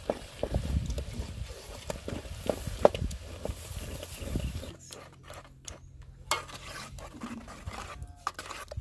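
Wooden spoon stirring and mashing cooked bean leaves in an aluminium pot: dense, irregular scrapes and soft knocks. About five seconds in, it changes abruptly to sparser clicks and scrapes of a metal spoon stirring in the pot.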